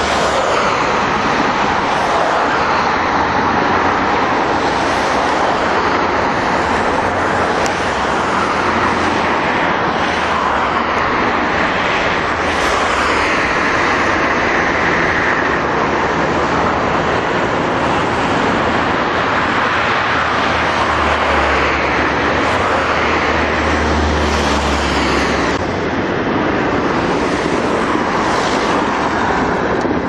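Road traffic on a highway, with cars and vans passing one after another in a series of swells over a loud, steady road noise. A heavier low rumble builds about two-thirds of the way through and cuts off suddenly.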